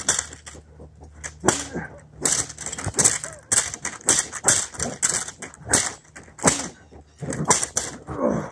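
A harnessed dog tugging hard against a bungee toward a bite toy, its breaths and growls coming in sharp bursts about twice a second.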